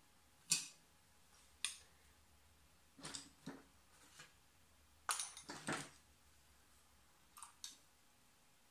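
A watercolour brush making short scratchy strokes and dabs on the paper, about six brief swishes, several of them bunched together midway.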